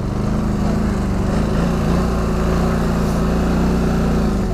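Polaris Scrambler 1000 XP quad's parallel-twin engine running at steady high revs under load as the ATV climbs a steep, muddy hill, with wind noise on the microphone.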